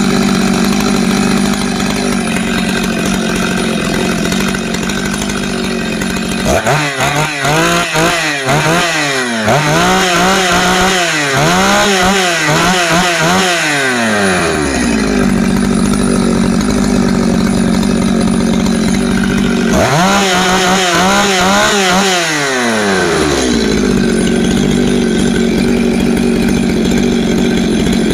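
Stihl MS 651 chainsaw's two-stroke engine, freshly fitted with a new cylinder and piston, idling a little fast. It is revved in a string of quick throttle blips about a quarter of the way in, then revved again about three quarters through, dropping back to idle each time.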